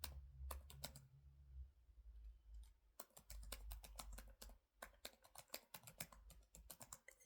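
Faint, irregular light clicks and taps, a few at first and then a quicker run from about three seconds in, over a low hum.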